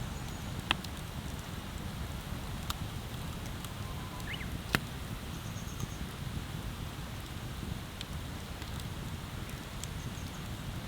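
Wood bonfire burning, with a few sharp crackling pops over a steady low rush; the loudest pop comes just under five seconds in.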